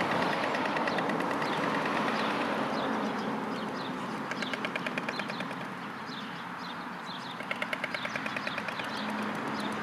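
White storks clattering their bills: two rapid runs of wooden-sounding clacks, about ten a second, each lasting a little over a second, about four and seven seconds in, over steady road traffic noise.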